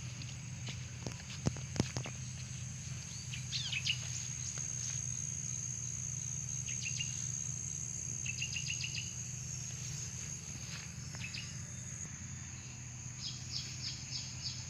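Steady high-pitched insect drone, with small birds giving quick series of short chirps several times. A few sharp clicks come in the first two seconds, over a steady low hum.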